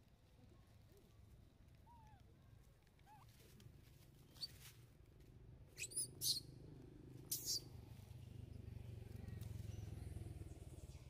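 Baby macaque giving short, high-pitched squeals, several in quick succession from about four and a half to seven and a half seconds in, after a few faint chirps. A low rumble builds in the last few seconds.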